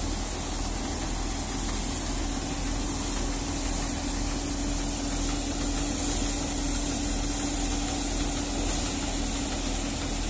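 A tractor-driven paddy thresher and the John Deere tractor powering it, running steadily: a constant mechanical drone with one unchanging hum tone.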